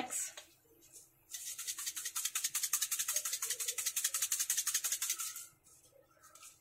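Chilli flakes rattling in a small plastic shaker bottle shaken rapidly over a pizza, an even, fast rattle that starts a little after a second in and lasts about four seconds.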